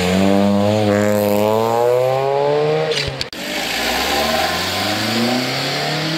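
Car engine accelerating hard away, its pitch climbing for about three seconds, cutting off abruptly for a moment with a sharp click as it changes gear, then climbing again.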